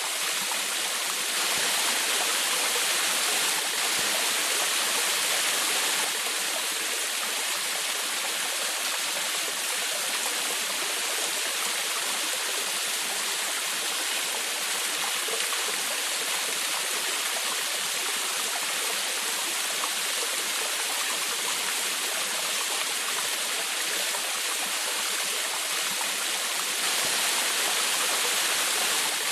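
Waterfall splashing and rushing steadily: a bright, hissing wash of falling water with little low rumble.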